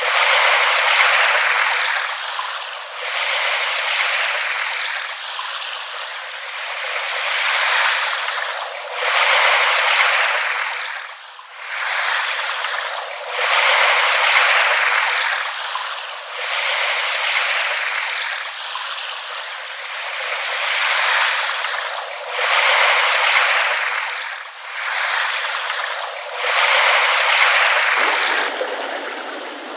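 Small waves lapping at the shore: a wash of water that swells and ebbs every two seconds or so, thin with no low rumble.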